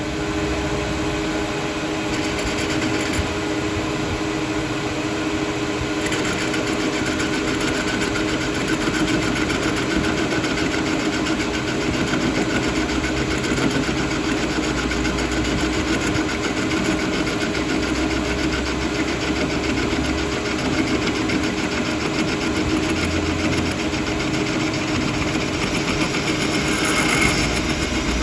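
Workshop machinery running steadily, with a fast, even rattle over a constant hum.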